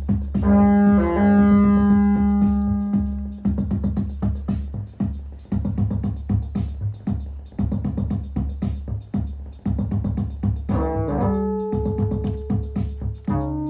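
Synthesizer playing a fast, even pulsing pattern under held pitched notes that change a few times, as a cat presses its keys.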